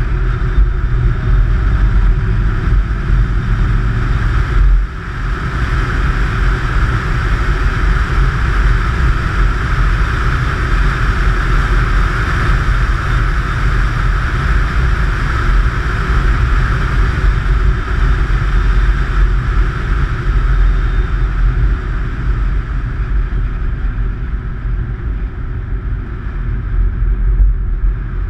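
Jaguar XKR driving on a winding road, heard from its bonnet: steady rumble of wind, tyres and engine, with a brief drop in level about five seconds in.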